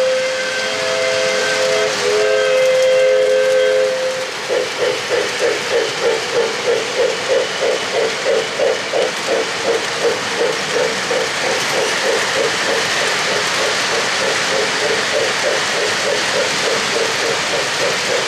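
Lionel O-gauge PRR S2 turbine's Legacy RailSounds whistle blowing two long chord blasts over the first four seconds. Then the locomotive's sound-system bell rings steadily at about three strikes a second, over the hiss and clatter of the train rolling on the track.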